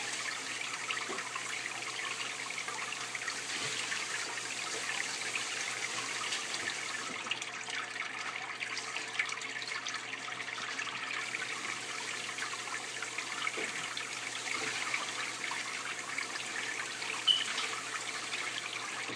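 Steady trickle of running water in a home aquarium, with fine splashing and bubbling throughout.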